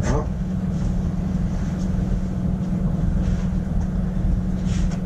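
Steady low drone of a running workshop machine, with a short falling tone right at the start and faint rustle of parts being handled near the end.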